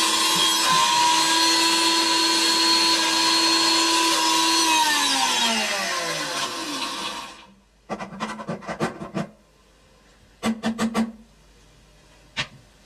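A 1200-watt Bosch VitaPower MMB 6174S jar blender motor running steadily while blending pesto. About five seconds in it is switched off and winds down, its pitch falling until it stops. A few short knocks and clicks follow.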